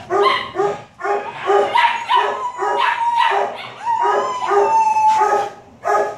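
Shelter dogs in their kennels barking over and over, about two or three barks a second, with two long drawn-out howls mixed in.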